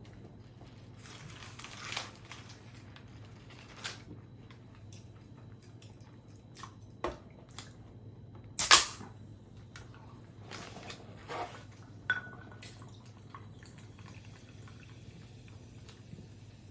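Close-miked eating sounds: wet chewing and mouth smacks with scattered short clicks, the loudest about halfway through.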